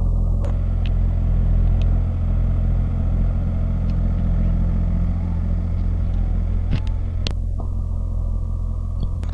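Tractor diesel engine running steadily under load while pulling a mouldboard plough through dry soil: an even, low drone, with a few sharp clicks.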